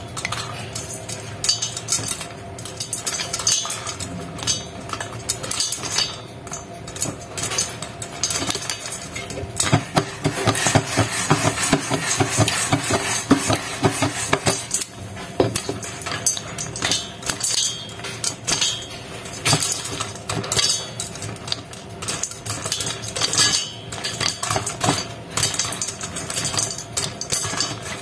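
Popcorn kernels popping in a covered pot, with many sharp irregular pops and kernels clinking against the lid and pot. The pops come thickest from about ten to fifteen seconds in, as the corn reaches full popping.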